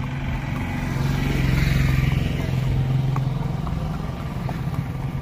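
A motor vehicle's engine running as it passes close by on the road, growing louder over the first two seconds and then slowly fading.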